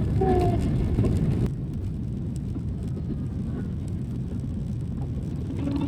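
Airliner cabin noise: a steady low engine rumble heard from inside the passenger cabin. It steps down abruptly to a slightly quieter rumble about one and a half seconds in.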